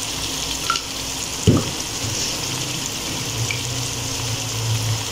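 Onion-tomato masala sizzling steadily in hot oil, with a single knock about one and a half seconds in.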